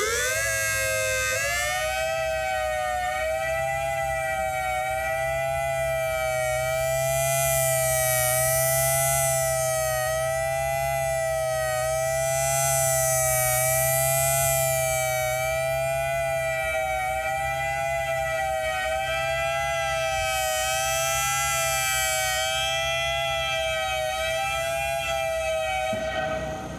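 Whelen WS/WPS-3000 electronic outdoor warning siren sounding a steady tone. It climbs quickly in pitch over the first second or so, then holds near one note with a slight waver. It grows louder and brighter three times before cutting off near the end.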